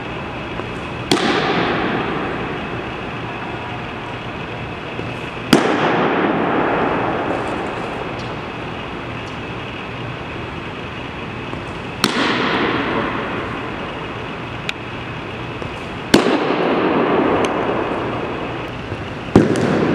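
Baseball popping into a catcher's leather mitt five times, a few seconds apart, each sharp crack echoing around a large gym.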